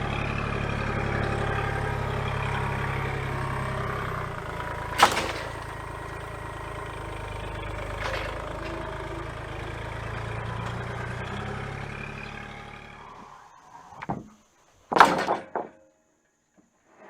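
An engine running steadily, with two sharp clicks, that dies away about thirteen seconds in. A few knocks follow, the loudest about two seconds later.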